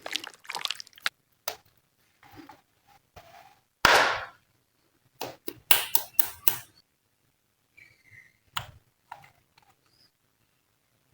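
Glossy slime being squished and worked by hand, giving sharp sticky clicks and pops in scattered bunches with silent gaps between, the loudest a short squelch about four seconds in.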